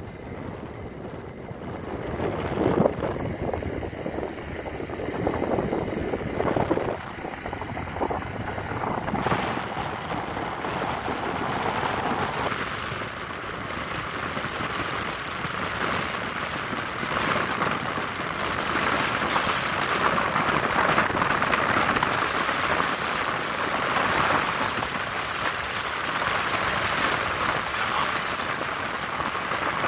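Steady rushing of wind on a phone's microphone, mixed with the road noise of a moving vehicle, rising and falling in loudness.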